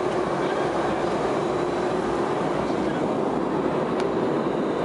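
Steady engine and airflow noise inside a Boeing 707's passenger cabin in flight, an even rushing noise with a low hum in it.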